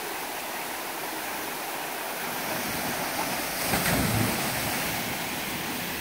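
Mountain stream pouring down a natural rock water slide into a pool, a steady rush of falling water. A brief low rumble about four seconds in.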